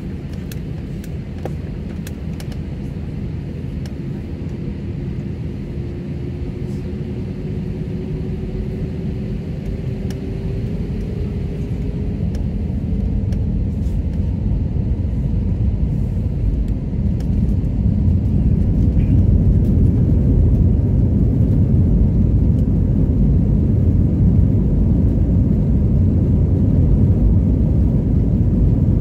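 An airliner's jet engines heard from inside the cabin, spooling up for takeoff: a faint rising whine under a steady rumble that grows much louder about halfway through and then holds at full thrust as the takeoff roll begins.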